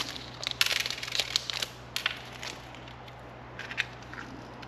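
Plastic packaging crinkling and crackling as it is handled, in a dense run of about a second near the start, then a few scattered small clicks.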